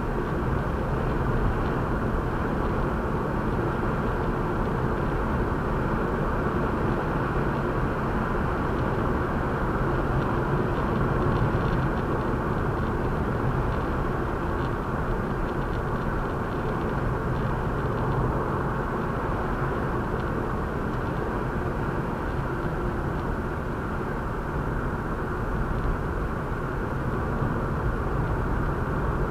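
Steady road and engine noise of a moving car, heard inside the cabin: a continuous low rumble with an even level.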